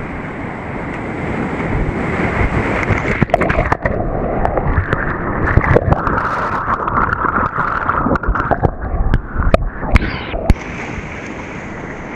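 Whitewater rapid rushing loudly past a helmet-mounted camera. About three seconds in the kayak flips and the sound turns muffled and gurgling underwater, with many sharp knocks and sloshes. Near the end the open rush of the rapid returns as the kayaker rolls back up.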